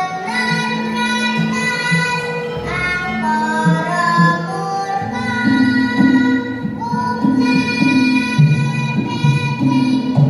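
A child singing a Javanese tembang in long, held, ornamented notes, with instrumental accompaniment whose low notes come in a steady pulse from about halfway.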